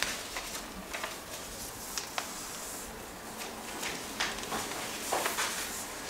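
Faint room noise with scattered small clicks and ticks.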